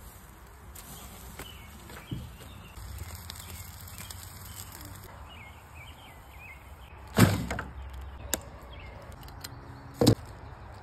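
Quiet outdoor background with faint bird chirps, broken by two sharp knocks about seven and ten seconds in and a small click between them.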